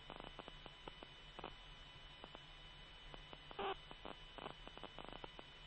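Low-level military radio channel between transmissions: a steady hum with scattered clicks and crackles, and a couple of short clipped bursts about midway.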